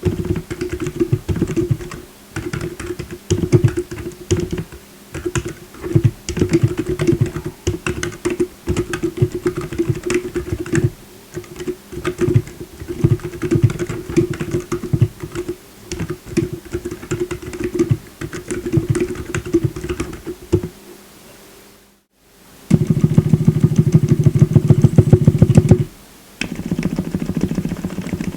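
Typing on a tape-modded Redragon K617R keyboard with Gazzew Bobagum silent linear switches and Cherry-profile keycaps: damped, muted keystrokes in a fast, irregular stream. It pauses briefly a little over 20 s in, then comes back as a very rapid, dense run of keystrokes lasting about three seconds, followed by a shorter burst near the end.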